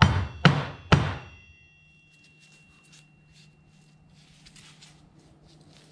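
Three quick metallic knocks in the first second, each followed by a short ring: an engine main bearing cap with its thrust bearing half being tapped against a flat surface to seat the bearing level. After that, only faint handling of the part.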